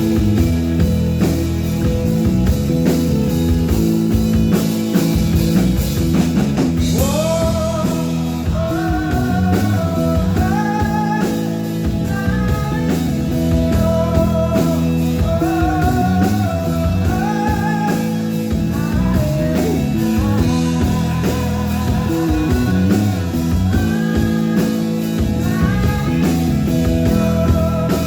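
A rock band playing live, with drum kit and guitars. A cymbal crash comes about seven seconds in, followed by a sung melody line with sliding notes over the band.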